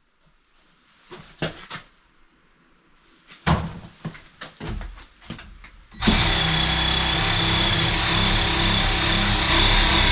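A few light knocks and handling clicks, then a power tool starts abruptly about six seconds in and runs loud and steady with a high whine.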